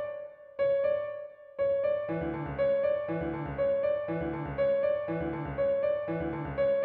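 Background music: a keyboard melody over chords struck at a steady beat, about two a second.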